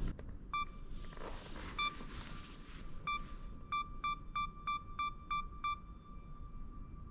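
A pinging beep at one steady pitch: three spaced pings, then a quick run of about seven at roughly three a second, each ringing on briefly.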